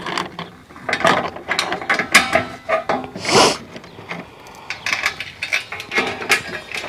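Nuts and bolts being fastened on corrugated metal raised-bed panels: rapid irregular clicking and metal-on-metal rattling, with a brief scraping rush about three seconds in.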